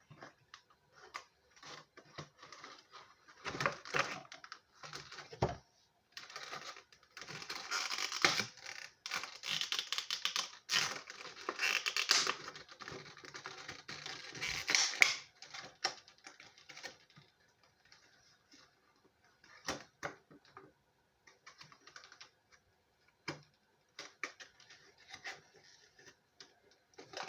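Plastic packaging of a boxed Funko Pop vinyl figure crinkling and clicking as it is handled and the figure is worked out of its box and clear plastic tray. The crinkling is densest and loudest through the middle, with scattered clicks before and after.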